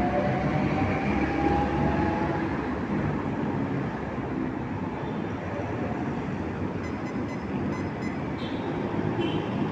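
Steady rushing wind and road noise from riding an electric scooter through city traffic, with a faint rising whine in the first couple of seconds.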